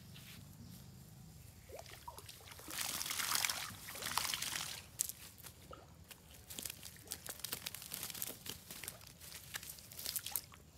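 Water pouring and sloshing off a fishing net as it is hauled out of a pond, loudest about three to five seconds in. Then the wet net and the grass under it rustle and crackle in many small clicks as the net is handled on the bank with fish in it.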